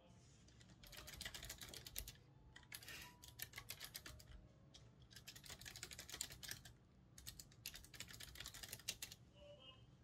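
Typing on a computer keyboard: four quick runs of key clicks with short pauses between them.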